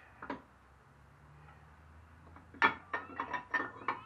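Metal parts of a stripped Kohler Command engine clinking and knocking as the camshaft is worked loose inside the crankcase. There is one click near the start, then a quick run of sharp, slightly ringing clinks in the last second and a half, the first of them the loudest.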